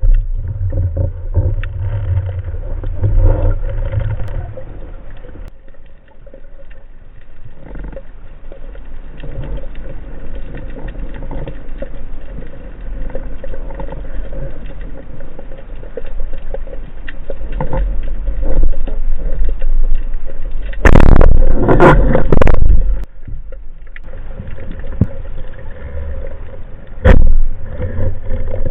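Muffled water-movement noise with a steady low rumble, as picked up by a spearfishing camera in the sea. A loud burst of noise lasting about two seconds comes about three-quarters of the way through, then a single sharp knock near the end.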